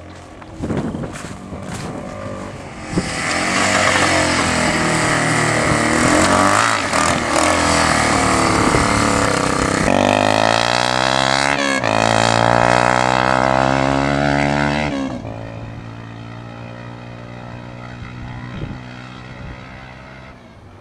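Yamaha Timberwolf 250 ATV's single-cylinder four-stroke engine running through a homemade straight-pipe exhaust with a chrome tip, loud from about three seconds in until about fifteen seconds, its pitch falling and rising as the throttle is worked, then settling lower. The exhaust has a raspy note from a leak where the pipe joins the stock header.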